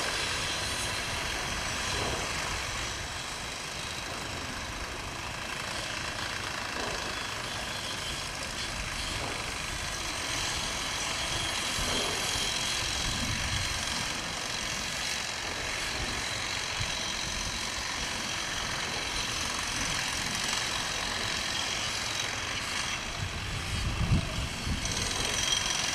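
Steady airport jet noise: aircraft engines running with a constant high whine over a hiss and low rumble. A brief low thump comes near the end.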